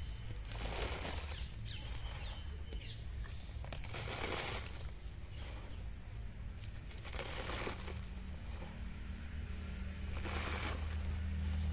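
Hands scooping dry, gravelly soil and pouring it into a plastic packet used as a pot: four short rustling scrapes and pours, about three seconds apart, over a low steady rumble.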